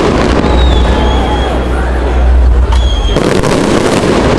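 Fireworks display: a continuous crackle and rumble of bursting shells, with a few high thin whistles, and a fresh cluster of sharp bangs about three seconds in. Crowd voices mix in.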